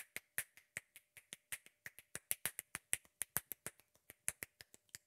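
Finger snapping with both hands, a quick uneven run of sharp snaps at about six a second, some louder than others.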